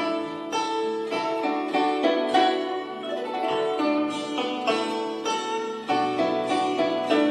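Background music of plucked string instruments, a lively melody of quick notes.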